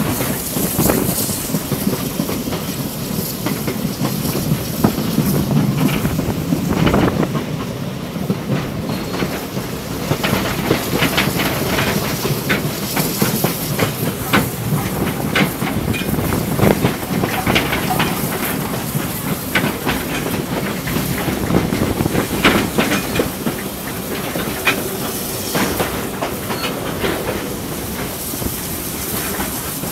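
Steam-hauled vintage train heard from an open wagon: the wheels clicking and clattering over the rail joints under a steady rolling rumble, with steam hissing.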